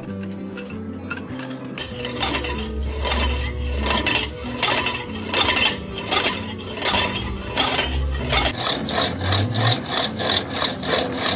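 Rhythmic metal scraping strokes on lathe work, coming faster in the last few seconds, over background music with a bass line.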